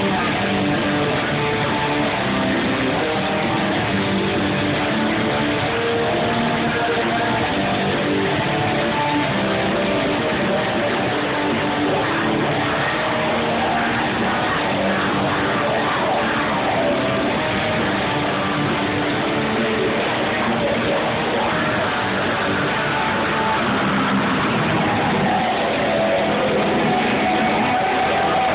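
Heavy metal band playing live, with distorted electric guitars to the fore, muffled as picked up by a camera microphone in the crowd.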